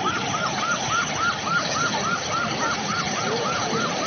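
A siren warbling fast, about four to five rising-and-falling cycles a second, over the steady rush of floodwater.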